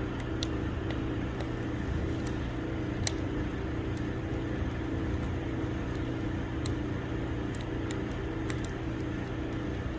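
Oak firewood burning in a wood stove, giving off scattered sharp crackles and pops at irregular moments over a steady low hum.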